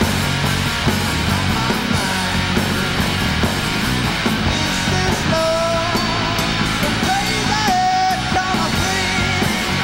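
Live rock band playing electric guitar, bass and drum kit, with a held, wavering melody line through the middle.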